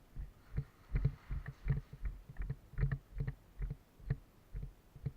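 Footsteps of a player walking, dull thuds about two to three a second.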